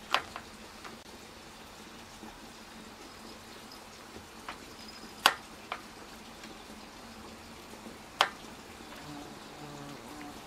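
Cats' paws and claws catching on a window screen and its metal frame: a handful of sharp, irregular clicks and taps, the loudest about halfway through.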